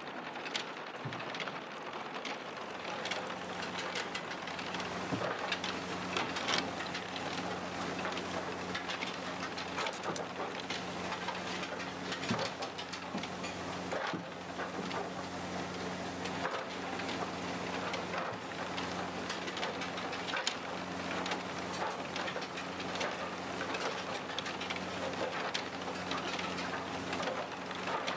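Clay roof tiles clinking and clattering as they are handled and stacked, irregular knocks throughout. A steady low machine hum comes in a few seconds in.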